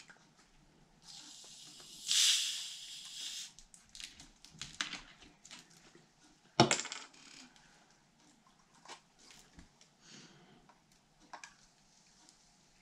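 Bottle of carbonated soda water being opened: a fizzing hiss of escaping gas lasting about two seconds, then scattered small clicks of the bottle and cap being handled, with one sharp knock about six and a half seconds in.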